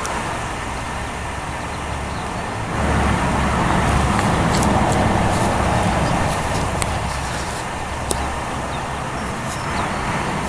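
Distant road traffic: a steady hiss, with a low rumble that swells about three seconds in and fades again around eight seconds.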